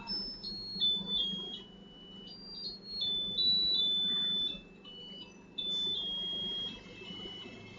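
Electronic melody chip playing a tune in thin, pure beeping notes that step up and down in pitch, each held for a fraction of a second, over a low steady hum.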